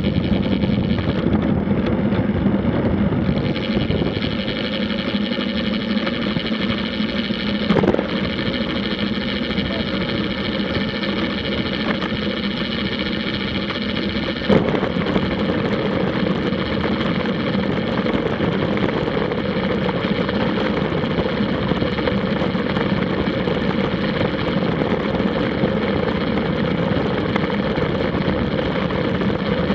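Steady rush of wind and tyre road noise on a bike-mounted camera during a fast road-bike descent at about 30 to 39 mph, with two sharp knocks partway through.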